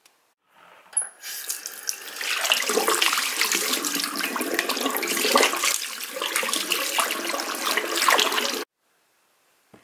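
Tap running into a sink while hands are rinsed and rubbed under the stream, water splashing off them. It comes on about a second in, grows louder once the hands are in the stream, and stops abruptly near the end.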